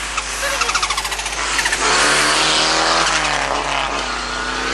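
Rally car engine at high revs passing at speed: a fast rattling pulse first, then the engine note swells about two seconds in, its pitch rising and dipping before it fades near the end.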